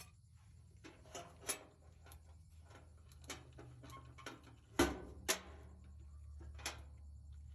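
Scattered clicks and knocks of tools and metal dryer parts being handled, the two loudest close together about five seconds in, over a low hum that grows stronger from that point.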